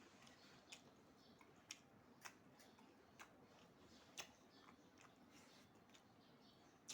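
Someone eating close to the microphone: faint, irregular wet clicks and smacks of chewing, about one or two a second.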